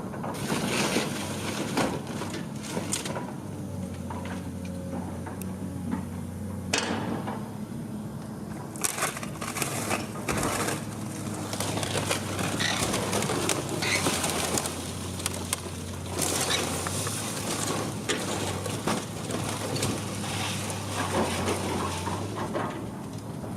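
Heavy demolition machine tearing down a house: its engine hums steadily under irregular crunching, cracking and snapping of breaking timber and debris.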